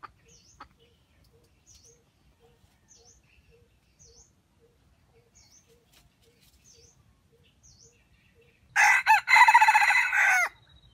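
Red junglefowl rooster crowing once near the end. It is a short crow of under two seconds, with a brief break just after it starts and a falling final note. Faint high chirps repeat about once a second underneath.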